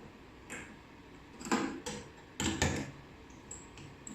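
Sharp metal clicks and knocks from the clamp of a zipper-slider torsion testing machine being undone, a handful of separate knocks with the loudest around the middle.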